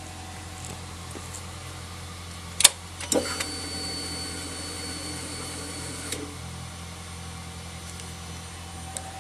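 On a Yamaha Super Tenere XT1200Z motorcycle, a sharp click, then a few more clicks and a steady whine lasting about three seconds that stops with another click, over a steady low hum.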